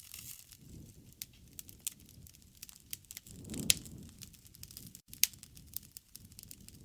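Wood fire burning, with irregular sharp crackles and pops over a low flame noise. The loudest pop comes about three and a half seconds in after a brief swell, and another sharp pop about five seconds in.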